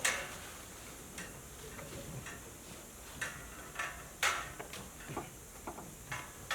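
Scattered knocks and clicks at irregular intervals, the loudest about four seconds in.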